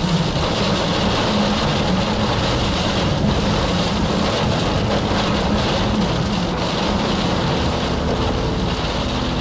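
Steady, loud noise of strong wind and rain on the microphone in the field close to a tornado.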